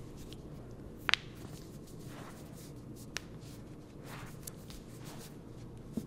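Joints of the foot popping under a chiropractic foot adjustment: a sharp crack about a second in, the loudest sound, and a smaller click about three seconds in, with soft rustling of hands on skin and the table between them.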